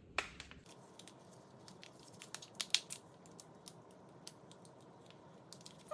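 Scattered sharp plastic clicks and crackles, bunched about two to three seconds in, as a Kinder egg's plastic toy capsule is pried open and handled.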